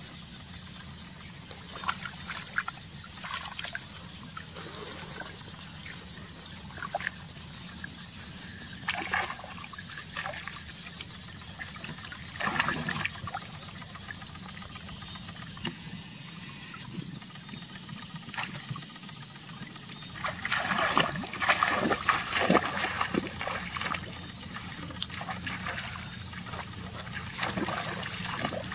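Water splashing and trickling in irregular bursts, getting busier and louder about two-thirds of the way through.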